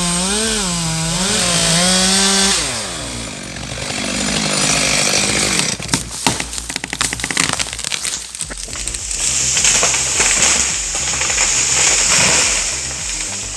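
Stihl MS 462 two-stroke chainsaw revving up and down in a felling cut, then its pitch drops as the throttle is released and it runs on low. About six seconds in comes a rapid run of sharp cracks, then a long rushing noise: the tree's wood breaking and the crown coming down.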